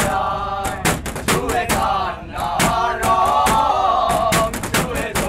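Several voices singing together over loud, irregular percussive hits.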